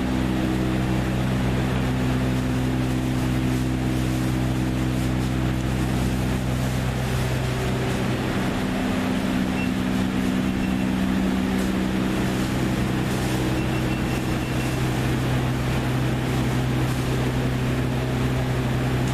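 Steady low mechanical drone of several held tones over a rushing noise; the tones waver and shift for a few seconds about halfway through.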